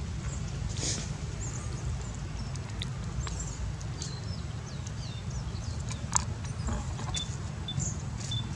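Outdoor ambience: a steady low rumble with scattered short high chirps and squeaks and a few sharp clicks. The loudest click comes about six seconds in, and short clear tones repeat near the end.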